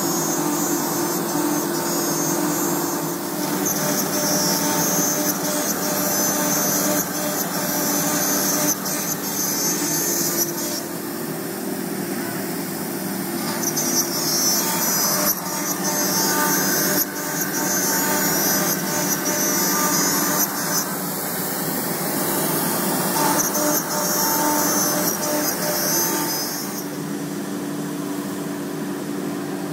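MultiCam CNC router spindle running and cutting grooves into sheet-stock panels. A high-pitched cutting noise comes and goes in passes a few seconds long over a steady machine hum.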